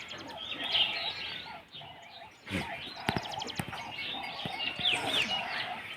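Birds chirping and calling in short, repeated notes, with some lower held calls, and a brief lull about two seconds in.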